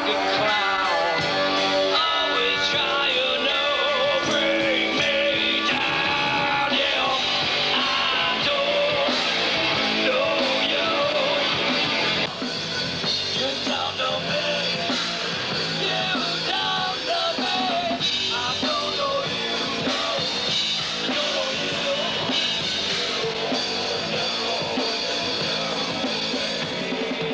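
Rock music with singing and guitar. The music changes abruptly and drops slightly in level about twelve seconds in.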